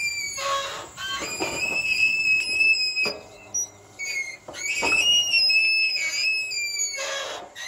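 Electric-driven oil-well pump jack running and squealing: a long, high squeal that wavers slightly through each stroke and drops into a falling lower whine at the turn, with a short lull about halfway.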